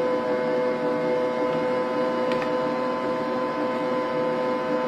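Bosch stand mixer running steadily with a constant humming tone, beating red velvet cake batter as the dry ingredients go in. A single light click a little after two seconds in.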